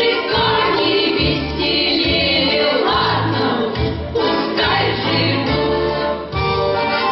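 Folk ensemble choir singing with band accompaniment over a regular low bass line.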